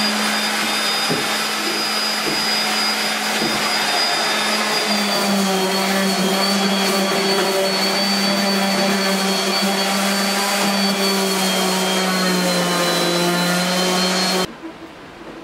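Handheld electric sander running steadily on diamond willow wood, a constant motor whine whose pitch sags slightly under load about five seconds in; it cuts off abruptly near the end.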